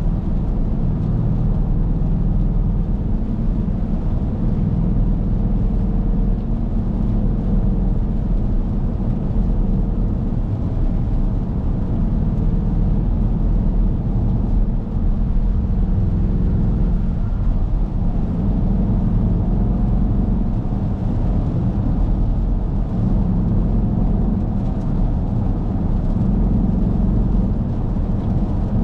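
Cabin sound of a 2023 Dodge Durango R/T's 5.7-litre Hemi V8 and its tyres on a wet road at highway speed, a steady low drone as the SUV gently gains speed.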